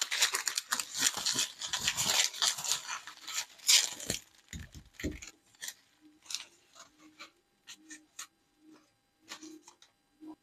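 Bubble wrap and plastic packaging crinkling and rustling as it is handled and unwrapped. It is dense for the first four seconds or so, then thins to occasional short rustles.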